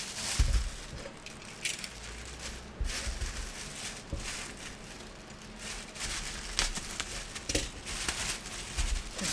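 Packaging being opened and handled: irregular crinkling and rustling, with a few dull knocks.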